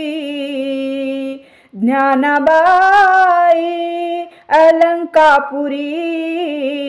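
A woman singing a Marathi devotional abhang unaccompanied, holding long notes with a slow wavering ornament. Her phrases break with short pauses about a second and a half in and again about four and a half seconds in.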